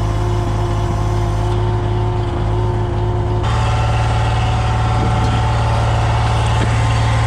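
Scania lorry's diesel engine running steadily. Its note shifts abruptly about three and a half seconds in and then holds steady again.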